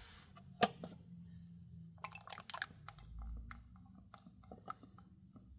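Motor oil being poured from a quart bottle through a funnel into the engine's fill, with soft irregular gurgles and small clicks, and one sharp click about half a second in.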